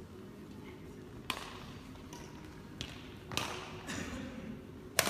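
Badminton rally: rackets striking the shuttlecock, four sharp cracks a second or so apart, the loudest near the end, echoing in a large hall.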